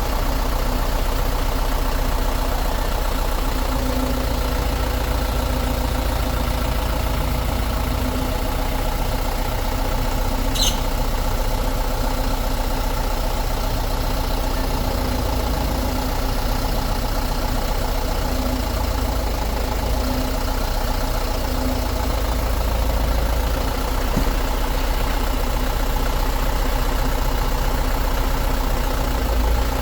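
Heavy truck's diesel engine idling steadily, with one brief high tick about ten seconds in.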